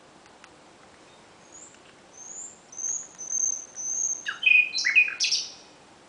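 Common nightingale singing: after a short pause, a phrase of several high, thin whistled notes, then a louder rapid burst of lower, sharper notes about four seconds in.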